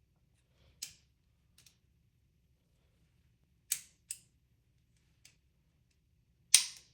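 Sharp clicks and snaps of 3D-printed plastic pistol parts being handled and fitted together, about five at uneven spacing, the loudest near the end.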